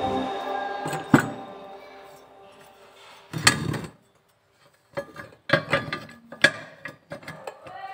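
Background music fades out, followed by scattered sharp knocks and clanks of metal parts being handled: one sharp hit about a second in, a heavier thud midway, then a run of quick clinks and knocks.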